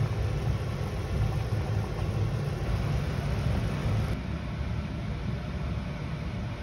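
Steady rumbling noise with a hiss over it, strongest in the low range; the hiss drops a little about four seconds in.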